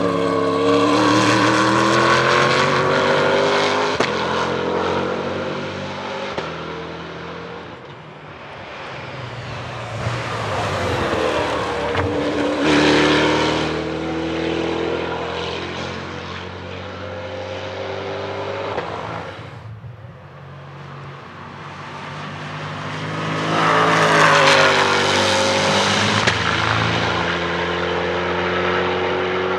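SCG 004C race car's 6.2-litre V8 engine running hard, its pitch climbing and falling repeatedly. It swells loud three times, near the start, in the middle and near the end.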